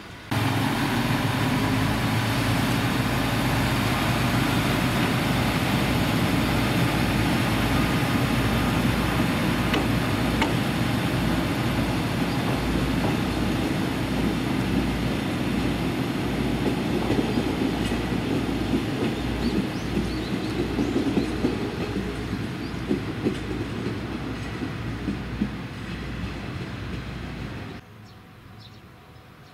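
Two-car diesel railcar set running on the line: a steady low, throbbing engine drone mixed with wheel-on-rail noise and a few clacks toward the end. It cuts in abruptly just after the start and cuts off abruptly shortly before the end.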